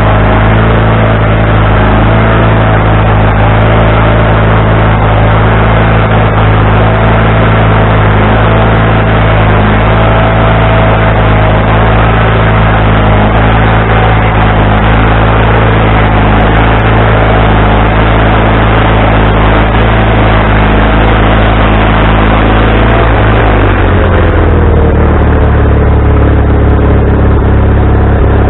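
Wood-Mizer LT40HD sawmill's engine running steadily with a higher whine over it. About 24 seconds in, the engine speed drops and the whine falls in pitch.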